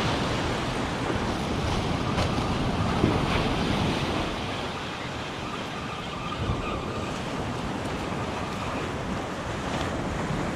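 Small surf breaking and washing up a sandy beach, with wind on the microphone.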